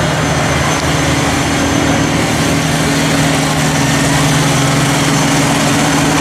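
Kubota BX23S subcompact tractor's three-cylinder diesel engine running steadily.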